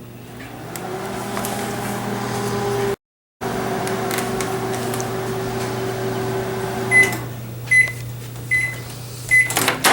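Microwave oven running with a steady hum, then stopping about seven seconds in and giving four short high beeps to signal the cooking time is done, with a sharp click near the end.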